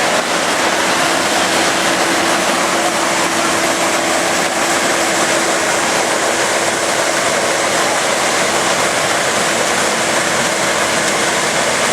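AGRI-68 rice reaper running steadily as it cuts rice: a loud, even machine noise with a steady hum through most of it.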